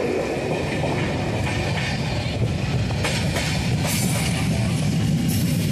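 Passenger train running on the track, heard from inside the coach at an open window: a steady, loud rumble of wheels on rails, with a few sharp clicks from the rail joints in the second half.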